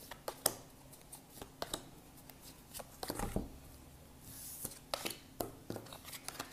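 Tarot cards being dealt and turned over on a wooden table: scattered soft taps and clicks of card against card and card against wood, with a brief swish of a card sliding a little past the middle.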